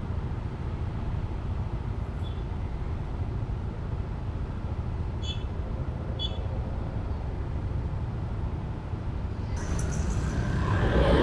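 Steady low rumble of wind and road noise picked up by a motorcycle rider's camera while riding, growing louder near the end.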